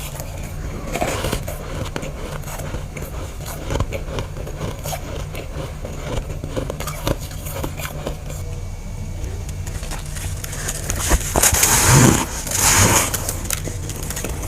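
Powdery freezer frost crackling and scraping softly, with two louder crunches near the end, over a steady low hum.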